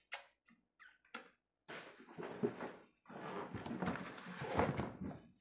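Handling noises of a large hard-shell suitcase being packed: a few light clicks and knocks, then a run of rustling and scraping as the lid is moved and the packed contents shift, with a short break about three seconds in.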